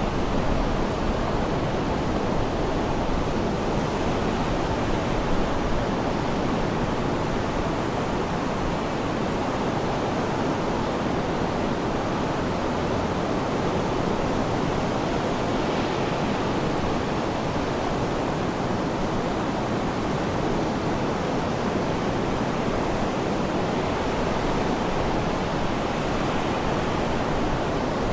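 Sea surf washing steadily as a continuous rushing noise, with no separate wave crashes standing out.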